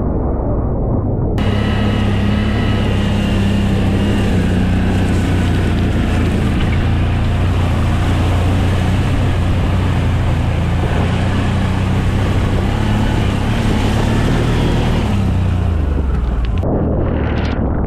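ATV engine running steadily under way, with water hissing and splashing up from the tyres while it crosses a shallow river; the splashing stops abruptly about a second before the end.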